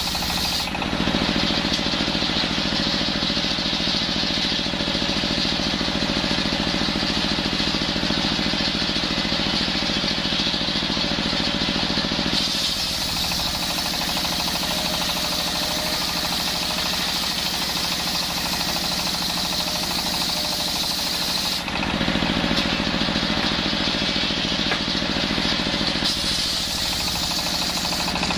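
Belt-driven circular saw bench running steadily while ripping a coconut-palm log lengthwise, its drive running with a fast knocking throb. The tone changes a few times as the blade enters and leaves the wood.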